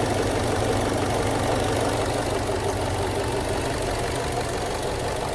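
Subaru Legacy BP5's EJ204 2.0-litre flat-four engine idling steadily, freshly fitted with a new timing belt kit, with a knock that the owner puts down to the timing belt tensioner.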